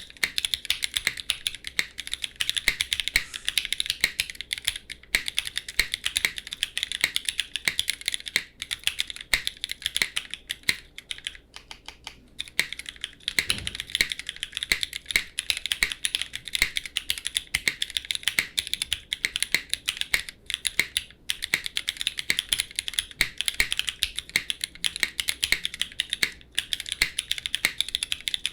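Continuous fast typing on a foamless F1-8x V2 mechanical keyboard with lubed Cherry MX2A Black linear switches and DCX doubleshot keycaps: dense key-press clacks with a few brief pauses.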